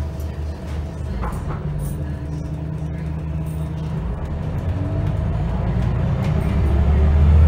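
Scania L94UA bus engine and ZF automatic transmission heard from the passenger cabin, a low drone growing louder as the bus pulls away, with a transmission whine rising in pitch over the second half. Light interior rattles and clicks now and then.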